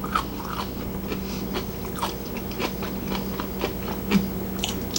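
Close-up chewing and biting of food, with irregular small crunches and mouth clicks over a low steady hum.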